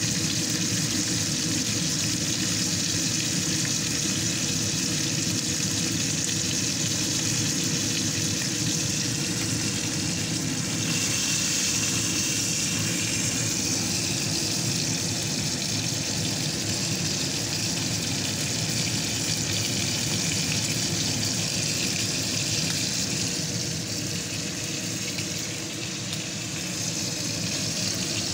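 Steak sizzling in a hot frying pan: a steady hiss that never lets up, with a steady low hum underneath.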